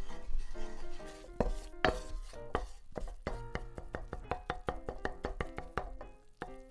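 Wooden spatula stirring and scraping a flour-and-butter roux against the bottom of a stainless steel saucepan, many short scrapes and taps that come faster in the second half, over light background music.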